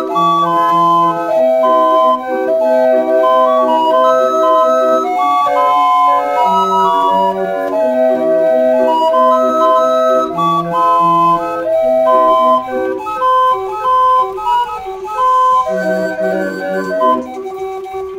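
Ignaz Bruder pipe barrel organ from about 1890, hand-cranked, playing a tune: a melody on its pipes over a steady, evenly repeating bass-and-chord accompaniment.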